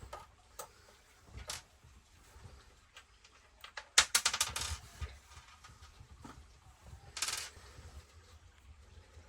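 Small metal clicks and clatter of screws and hand tools being handled on a workbench, with a quick rattle of several clicks about four seconds in and another shorter one after seven seconds.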